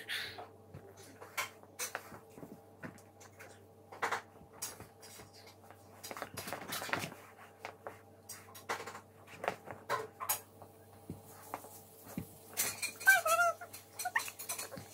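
Scattered light clicks and clatter of dishes and cutlery as a toddler eats in a high chair, then a short wavering high-pitched squeal from the toddler near the end.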